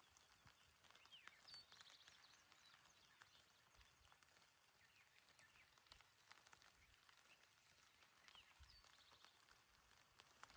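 Faint gentle rain falling on a mountain meadow, a soft patter of scattered drops. A short high call, a quick rising note then a brief trill, comes twice, about a second and a half in and again near the end.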